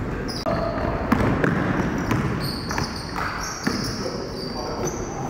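Basketball game sounds in an echoing gym: a basketball bouncing on the hardwood court, with sharp knocks and short high squeaks scattered through.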